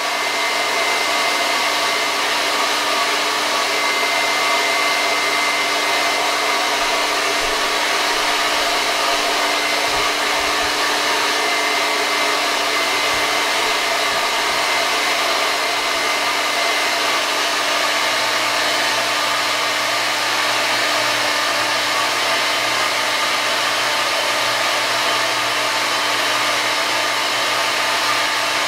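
Hair dryer running steadily at constant speed, blowing air into a long tube: an even rush of air with a steady motor-and-fan whine in several tones.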